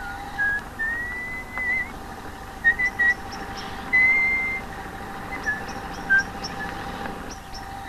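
A man whistling idly, in scattered short notes and small pitch glides with a couple of longer held notes, over a steady faint hum in the old film soundtrack, with faint high chirps above.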